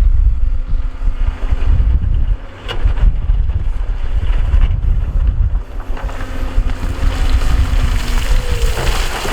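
Diesel engine of heavy earthmoving machinery running under load as a deep, steady rumble, with wind buffeting the microphone. A couple of sharp knocks come through, and the engine pitch glides up and down near the end.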